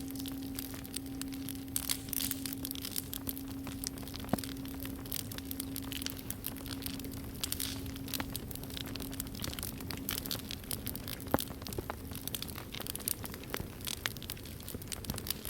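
Wood fire crackling and popping with a soft hiss, while the lingering hum of a struck singing bowl dies away about ten seconds in.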